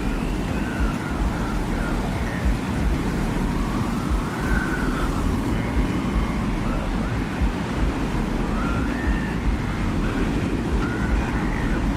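Desert wind ambience: a steady low rumble of wind with faint whistling tones that waver and glide up and down above it.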